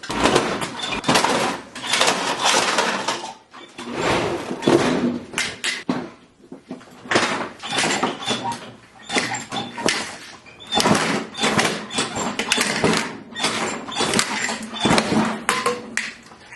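Shredder grinding and chewing through a toy in loud, irregular bursts with short breaks between them.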